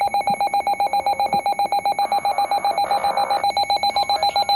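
Electronic alert beeping from an Emergency Alert System broadcast: one high tone pulsing rapidly on and off, about eight or nine beeps a second.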